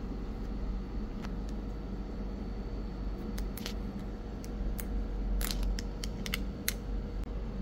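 Small sharp clicks and crackles of hands handling a Samsung Galaxy Z Flip 6 and pulling back the protective plastic film on its screen, over a steady low hum. The clicks come sparsely at first and cluster in the second half.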